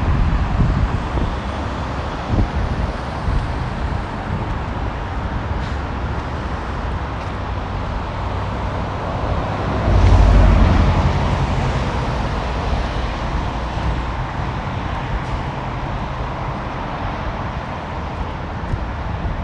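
Road traffic passing on a rain-wet city street, with wind buffeting the microphone in a low, uneven rumble. A louder swell comes about halfway through.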